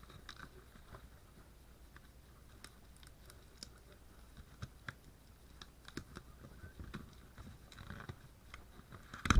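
Scattered small clicks and crinkles of packaging being handled during an unboxing, with one sharp knock near the end.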